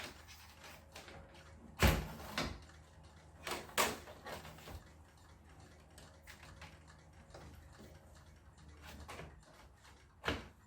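Handling noise from work on an opened LCD TV's wiring and panels: a few sharp knocks and clatters. The loudest comes about two seconds in, a cluster follows around four seconds, and one more comes near the end.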